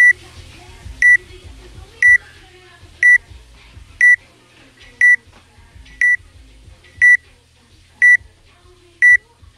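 Workout countdown timer beeping once a second: ten short, high, even beeps counting down to the start of the workout.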